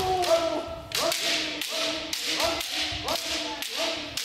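Bamboo shinai cracking against armour and against each other, about a dozen sharp strikes from several sparring pairs, with a short echo after each. Held, rising kiai shouts from several kendoka overlap the strikes.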